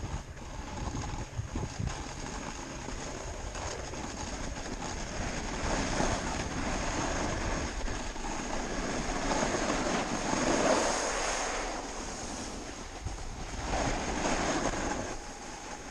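Snowboard sliding and scraping over snow with wind rushing over the microphone, in several long swells of noise, as on a run down the slope.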